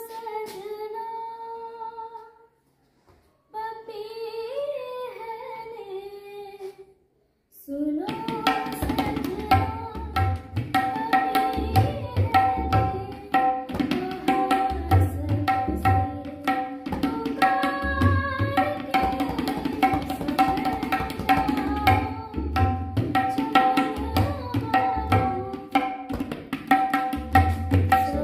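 A young woman singing a Hindi film-style song, alone for the first seven seconds or so with two short breaks. Then a tabla comes in at about eight seconds, played in a steady rhythm of ringing strokes under her voice.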